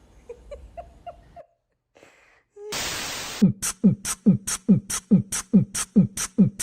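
A few faint short squeaks, then a brief loud burst of hiss, then from about three and a half seconds in a fast, even beat of low thumps, each with a sharp tick on top, about three and a half a second.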